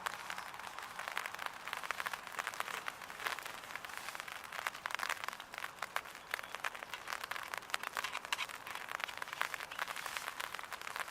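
Rain drops pattering close by, a dense, irregular crackle of many small ticks that keeps on at an even level.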